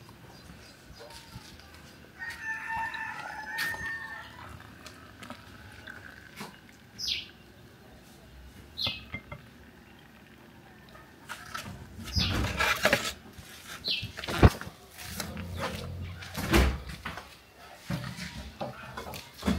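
A rooster crowing once, about two seconds in. Later comes a cluster of knocks and bumps, the sharpest about fourteen seconds in.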